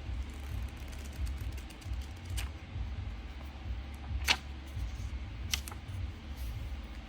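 A few sharp clicks, four in all and one much louder than the rest, over a steady low rumble.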